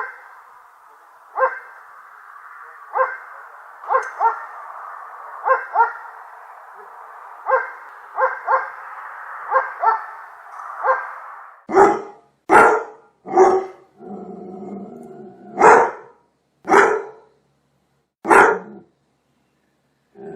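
Dog barking repeatedly. First comes a string of thin, muffled barks, roughly one a second, over a steady hiss. From about twelve seconds in, louder, fuller close barks follow about a second apart.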